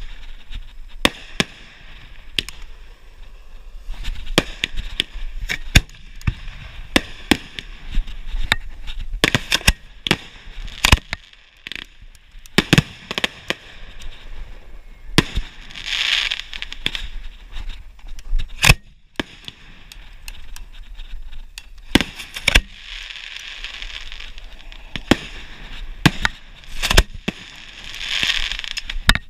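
Aerial fireworks launching and bursting in a long, irregular run of sharp bangs. There are a few stretches of hiss around the middle and again near the end.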